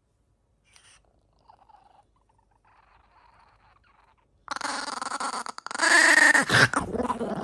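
An animal's loud, drawn-out pitched cry, falling in pitch near its end. It starts after about four and a half seconds of near silence.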